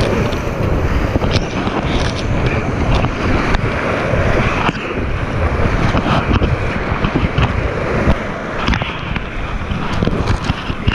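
Whitewater rapids rushing around a kayak, loud and steady, with frequent short splashes as waves and the paddle hit the water close to the microphone.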